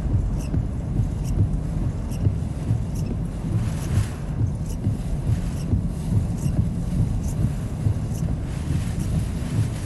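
Hurricane-force wind gusting against the microphone, a heavy, fluttering low rumble, with short high hisses recurring about once a second.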